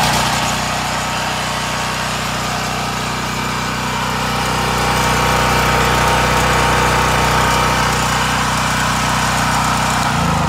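DuroStar DS4000S portable generator's 7-horsepower air-cooled overhead-valve engine running steadily at a constant speed, with its choke open after a recoil start.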